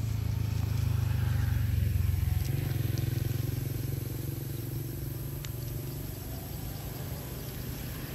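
A motor vehicle's engine running with a steady low rumble, which shifts in pitch about two and a half seconds in.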